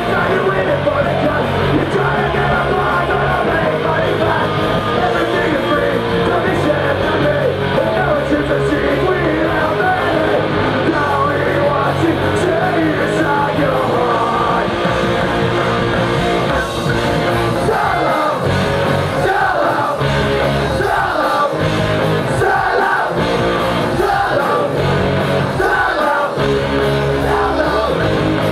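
Punk rock band playing loud, with shouted, yelled vocals over distorted guitars and drums, as heard in the crowd at a live show.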